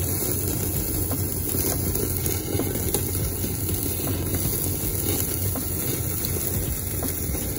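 Beef kalbi sizzling and crackling on a gas-fired yakiniku table grill as dripping fat flares up through the grate, over a steady low hum.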